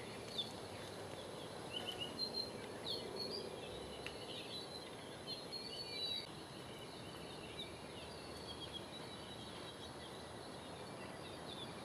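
Small wild birds chirping and twittering in forest, a quick scatter of short high calls that is busiest in the first half and thins out later, over a faint steady hiss.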